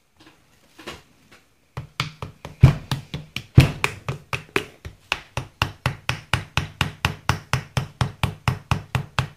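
Rapid, steady knocking on a Holley four-barrel carburetor body during disassembly, about four knocks a second. It starts about two seconds in, with two harder knocks early in the run, to free a part that has not been apart in a long time.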